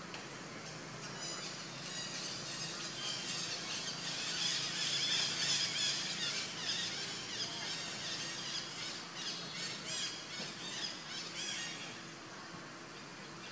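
Macaque squealing: a fast run of short, high-pitched squeals that starts about a second in, is loudest around the middle and thins out near the end.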